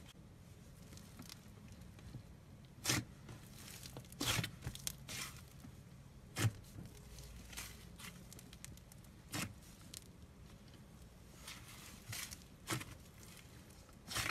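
Thick slime being stretched and squished by hand, giving short sticky crackles and pops about eight times at uneven intervals.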